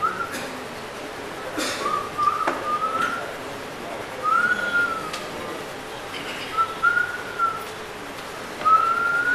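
A high whistle in four slow phrases: the first and last rise, the middle two rise and fall. A few faint knocks sound between them over a low steady background hiss.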